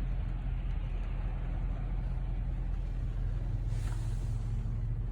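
Steady low drone inside the cabin of a Lexus LS430 driving on a wet road: engine and tyre noise. A brief swell of hiss comes about four seconds in.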